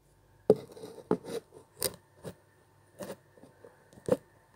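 Light, irregular knocks and clicks, about eight in four seconds, from a phone being handled as it records.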